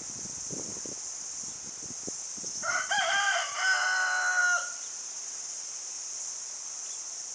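A rooster crowing once: a single cock-a-doodle-doo about two seconds long, starting a little under three seconds in.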